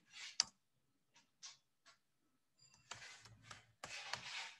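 Faint scattered clicks of a computer keyboard being typed on, in short bursts with pauses between.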